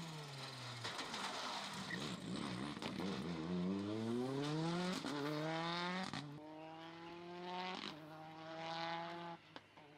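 Ford Fiesta N5 rally car accelerating hard: the engine note falls briefly at first, then climbs steeply in three rising pulls with quick gear changes between them, cutting off near the end.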